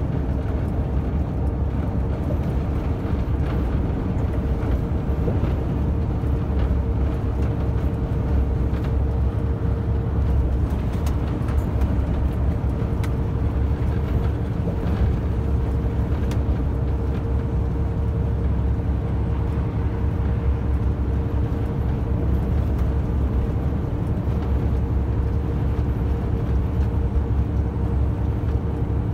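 Semi-truck cab interior at a steady 90 km/h highway cruise: a continuous deep engine drone and road noise, with a steady mid-pitched hum, unchanging throughout.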